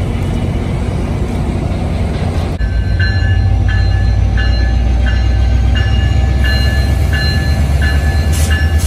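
Metrolink diesel locomotive idling at the platform with a steady low engine rumble. From about three seconds in its bell starts ringing at a steady pace of just under two strokes a second, the usual warning before the train pulls out.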